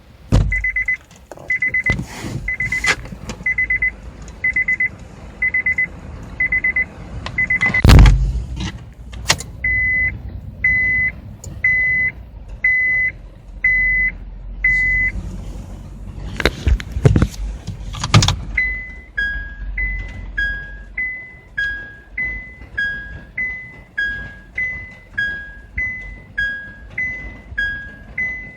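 Electronic warning tones inside a mid-production Honda Freed (GB/GP). Two runs of evenly spaced single high beeps at one pitch come first, broken by loud thumps about 8 s in and again just past the middle. From about two-thirds of the way through, a repeating two-note high-low "kin-kon" chime plays: Honda's reverse-gear warning chime.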